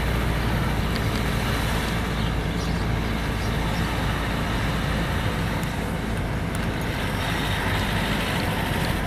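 A moving car's steady engine and tyre noise on an asphalt road, a constant low rumble.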